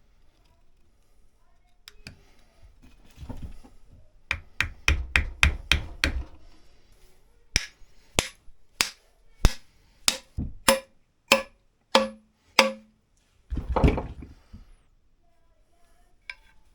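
Hammer blows on an axe while a new hickory handle is being fitted to the head: a quick run of about eight strikes, then about ten slower, evenly spaced strikes about half a second apart, several with a short ring. A brief scuffing noise follows near the end.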